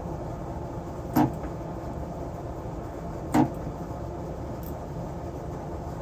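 Two short sharp clicks about two seconds apart over a steady background noise.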